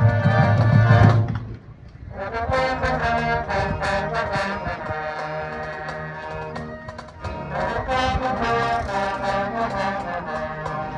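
A high school marching band playing. A loud full-band passage cuts off about a second and a half in, and after a brief dip the brass section comes back in with sustained chords.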